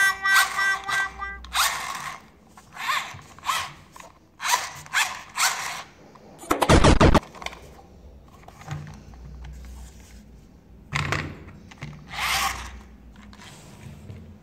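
A short electronic tune ends about a second in, then a run of irregular short rattling clatters from a plastic toy train being handled, with one loud thump about seven seconds in.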